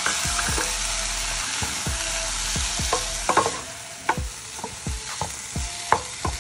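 Vegetables sizzling in hot mustard oil in a stainless steel pot as a wooden spatula stirs them. The sizzle weakens about halfway through, and the spatula knocks against the pot several times.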